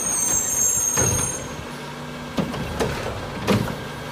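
Front-loading garbage truck running, with a high squeal during the first second and a half and several sharp metal clanks as its front arms lift a trash cart.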